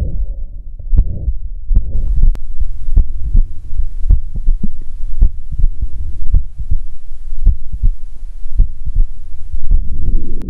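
Heart sounds recorded through a smartphone stethoscope app: repeated low beats about twice a second. The recording illustrates a systolic heart murmur. A faint hiss comes in about two seconds in.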